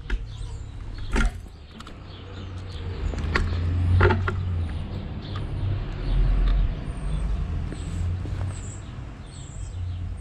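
Low rumble of wind on the microphone during a bicycle ride, with a few sharp clicks in the first half. From about halfway, a bird gives a run of short, high chirps, about one a second.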